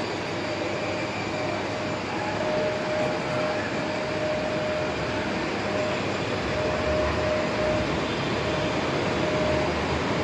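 Electric ride-on toy jeep running, a steady motor whine that drops out briefly a few times over the rumble of its plastic wheels rolling on a tile floor.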